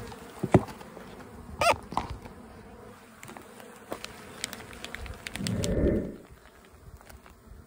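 Honey bees buzzing around an open hive, one passing close with a short wavering buzz about two seconds in. There are a few sharp knocks, and a brief swishing burst about five seconds in as the mite-wash jar of bees is shaken.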